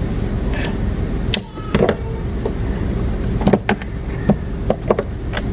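Small clicks and knocks of plastic dolls being handled and set down on a wooden dollhouse, over a steady low rumble; the knocks come thickest in the second half.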